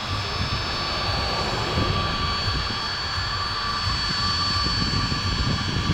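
Fokker 100 jet's twin Rolls-Royce Tay turbofans running as the airliner taxis along the runway. A steady whine of several high tones sits over a low rumble.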